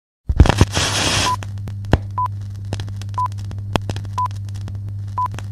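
A glitch-static transition: a brief silence, then about a second of static hiss, settling into a low electrical hum with scattered crackles and a short high beep about once a second.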